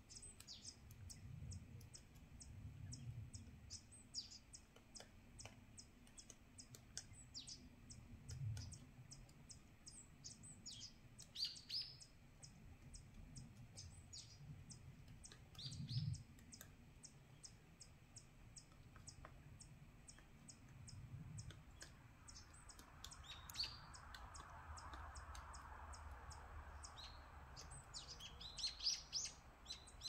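Faint forest birdsong: short, sharp call notes scattered throughout, such as a great spotted woodpecker's, with three brief flurries of quicker, falling chirps.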